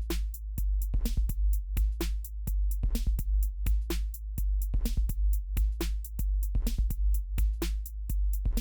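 Background electronic music with a steady drum-machine beat over a deep, sustained bass, about one strong hit a second with quick ticks in between.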